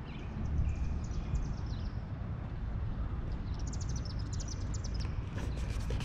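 Outdoor ambience: a steady low rumble with small birds chirping, ending in a quick run of high chirps about four and a half seconds in.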